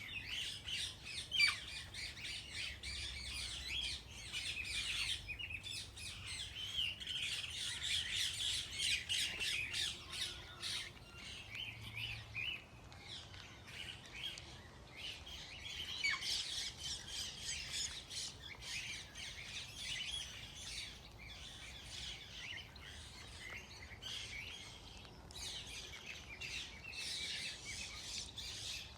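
A flock of birds chirping and squawking together: a dense, unbroken chorus of short, high calls, with one sharper, louder call about a second and a half in.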